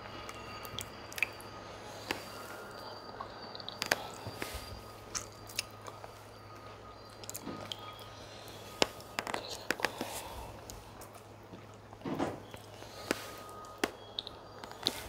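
Close-miked eating sounds of chicken pepper soup and fufu being chewed: irregular wet clicks, smacks and bites at an uneven pace, over a faint steady low hum.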